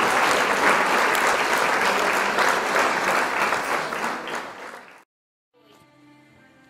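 Audience applauding, a dense steady clapping that fades out about four to five seconds in. A brief silence follows, then faint steady tones.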